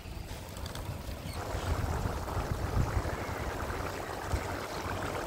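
Butter sizzling in a big pan of pav bhaji vegetables, a steady frying hiss that swells about a second in, over a low rumble.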